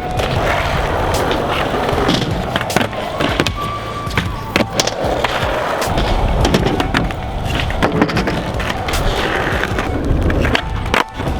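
Skateboard rolling on concrete, with many sharp clacks and knocks from the board, over background music.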